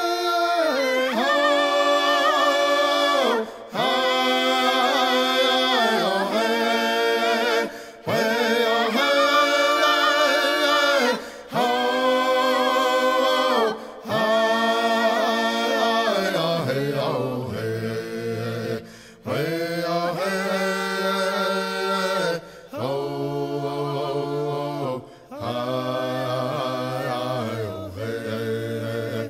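Unaccompanied singing: a voice holding long notes in phrases of about two seconds with short breaks between them, the melody moving to a lower pitch about halfway through.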